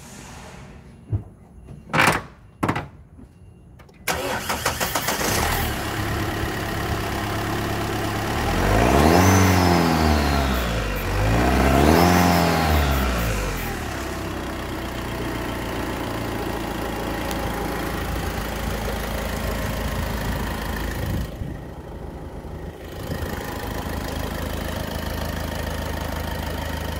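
Great Wall Steed's 2.0-litre common-rail turbo-diesel engine started after a few clicks, catching about four seconds in. It is revved twice, rising and falling, then settles into a steady idle.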